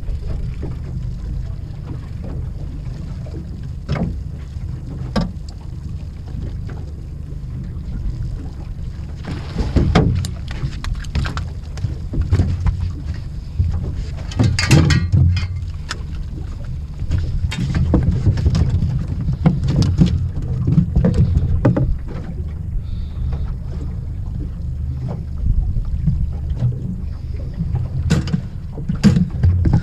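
Sounds aboard a small aluminium fishing boat at sea: a steady low rumble with water against the hull, and many short knocks and clatters of gear being handled against the boat, the loudest cluster about halfway through and more near the end.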